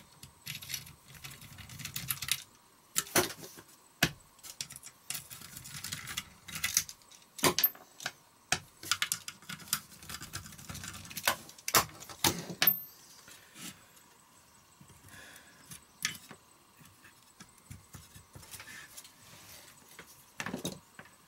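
Screwdriver working loose screws out of a small electric motor's sheet-metal mounting bracket: scattered metallic clicks, scrapes and clinks, thinning out in the last third.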